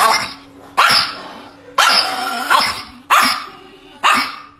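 Chihuahua barking at a toy megaphone held up to it: about six sharp, loud barks, a half second to a second apart.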